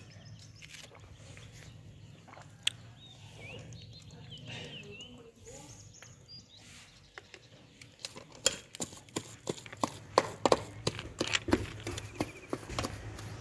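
Wooden pestle pounding seasoned ground-herring paste in an aluminium pot, giving sharp knocks: a few scattered strokes at first, then a quick, uneven run of several knocks a second from a little past halfway.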